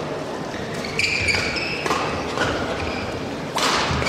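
Badminton doubles rally: rackets hitting the shuttlecock with sharp knocks, and players' shoes squeaking on the court mat, over a steady crowd murmur in a large arena. The play picks up about a second in, and there is a louder hit near the end.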